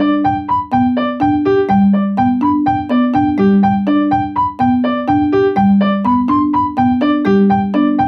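Background music: a bouncy keyboard tune of short, quick notes at a steady beat over a line of longer low notes.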